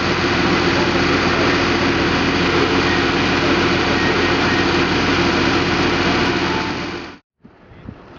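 Fire engine's engine running steadily to drive its pump, mixed with the hiss of the water jet from its roof monitor. It cuts off abruptly about seven seconds in, leaving faint wind and outdoor noise.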